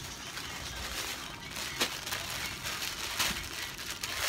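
Shirts and their wrapping being handled: soft rustling over a steady hiss, with a few short crinkles or clicks, one about two seconds in and two more near the end.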